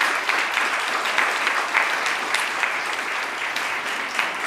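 Audience applauding steadily in a hall, many hands clapping at once.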